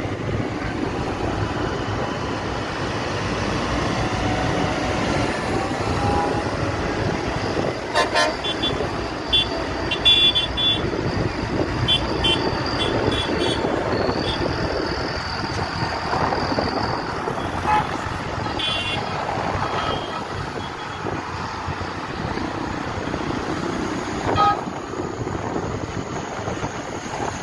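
Diesel farm tractors driving past one after another, their engines running steadily. A series of short horn toots sounds in the middle, with one more near the end.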